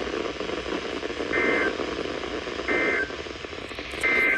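Three short EAS end-of-message data bursts, each a brief buzzy two-tone warble, sent about 1.3 seconds apart over a weather radio's steady hiss, signalling the end of the alert.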